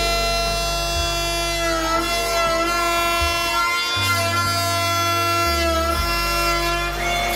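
Instrumental background music: sustained held notes over a bass line that steps to a new note about once a second.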